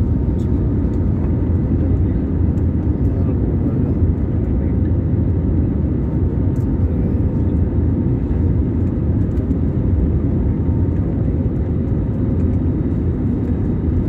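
Cabin noise inside an Airbus A320-family jet airliner on short final just before touchdown: a steady low rumble of engines and airflow with a faint steady tone over it.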